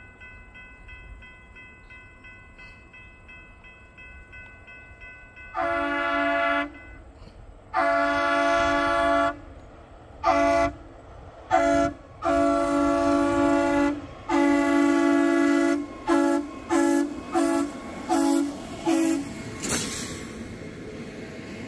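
Horn on an approaching rail track-maintenance machine sounding for the crossing: two long blasts, two short, two more long, then a quick run of about six short toots. Near the end the machine passes with a brief rush of noise.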